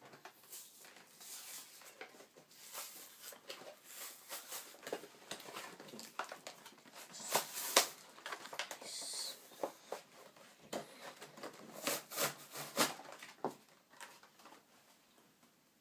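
Toy packaging being torn open by hand: irregular crackling, rustling and tearing, with several sharper cracks partway through.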